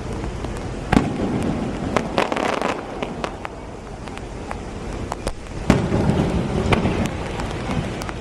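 Fireworks display: aerial shells bursting with sharp bangs, the loudest about a second in and again near six seconds, over steady crackling and a low rumble.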